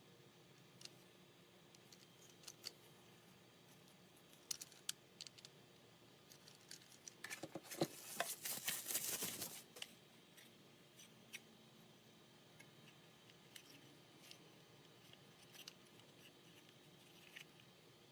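Handling noise: faint scattered clicks, with a dense patch of rustling and clicking about seven seconds in that lasts a few seconds.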